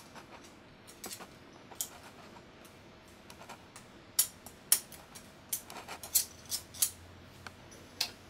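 Small metallic clicks and clinks of a silver penannular (horseshoe) brooch being fastened onto a wool cloak, its pin pushed through the cloth and the ring worked into place. The clicks come scattered at first, then thicker and sharper in the second half.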